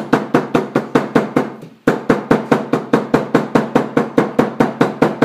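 A mallet rapidly pounding the paracord fall hitch of a whip against a wooden tabletop to even out the strands. The taps are quick and even, about five a second, with a short break about a second and a half in.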